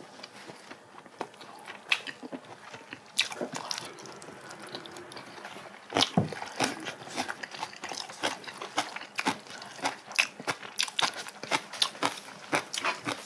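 Close-miked eating: chewing and biting of spicy braised cod head, with many small wet clicks and smacks that come thicker from about six seconds in.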